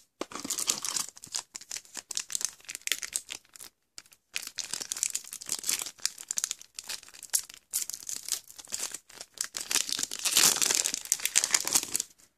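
Foil trading-card booster pack wrapper being torn open and crinkled by hand: dense crackling in spells, with a short pause about four seconds in, loudest near the end.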